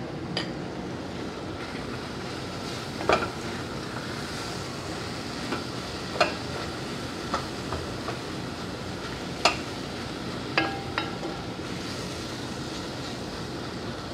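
Ground meat sizzling in a pot over a gas flame as it is stirred with a wooden spoon, with a steady hiss and several sharp knocks of the spoon against the pot.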